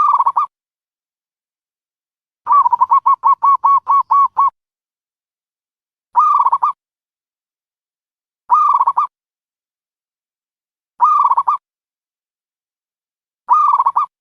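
Dove cooing: short pitched calls about every two and a half seconds, with one longer run of about ten quick notes near the start. The calls are loud against completely silent gaps.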